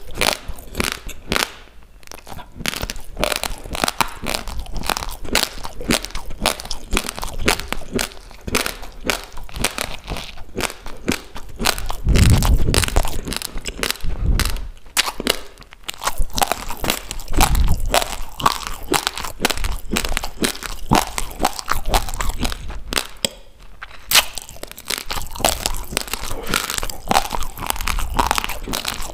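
Raw rice grains crunched and chewed close to the microphone: a fast, dense crackle of dry grains breaking between the teeth that goes on without a break, with a couple of heavier, deeper crunches around the middle.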